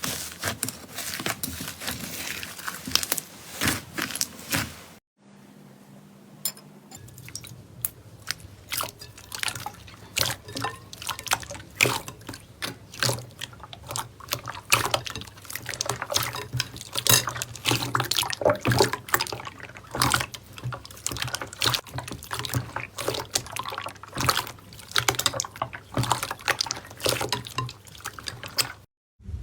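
Slime being squeezed and played with by hand: dense, irregular wet clicks and pops. It breaks off about five seconds in and starts again a couple of seconds later.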